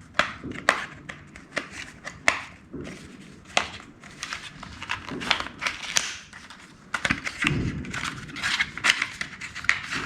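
Packaging of a laptop stylus pen being handled and opened: irregular crinkling and rustling with sharp clicks and light knocks.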